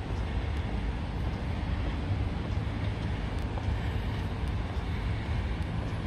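Steady rumble of city traffic, a continuous low noise with no bell tones.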